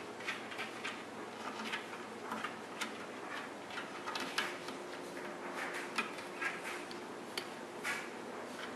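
Cat pawing at the bottom edge of a kitchen cabinet door: irregular light scratches, clicks and taps of claws on the door and of the door against its frame, over a faint steady hum.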